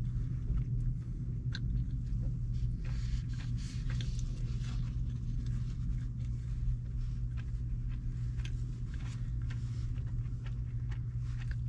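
Someone chewing a takeout meal of orange chicken and chow mein noodles, with scattered sharp clicks of a plastic fork against a plastic bowl, over a steady low hum inside a car cabin.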